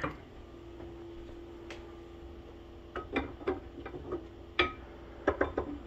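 XOP Ultra Series aluminium climbing sticks clicking and knocking against each other as the stacked set is set down into its box. A quiet start with a faint steady hum, then a run of light clicks and knocks from about three seconds in.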